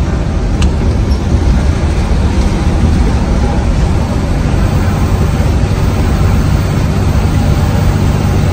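Bus under way on the road: a loud, steady engine drone with road rumble, and one short click about half a second in.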